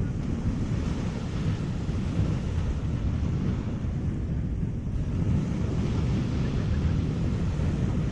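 Wind buffeting the microphone, a steady low rumble, over the wash of the sea.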